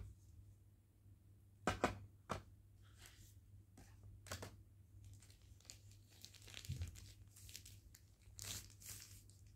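Thin plastic film crinkling and tearing as it is handled and peeled off a new smartphone, with a few sharp clicks about two seconds in and the crinkling loudest near the end.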